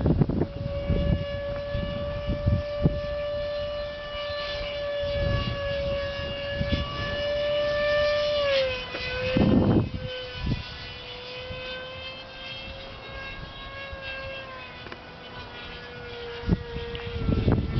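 Electric ducted fan of an Exceed RC F-35 Lightning model with a Jetscreamers Little Screamer motor, whining steadily in flight. Its pitch dips slightly about halfway through and again near the end. Gusts of wind buffet the microphone.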